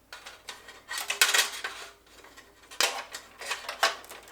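Cables and the metal PC case being handled as wires are fed through the case's cable routing: light metallic clattering and clicking in three short bursts, about a second in, near three seconds and near four seconds.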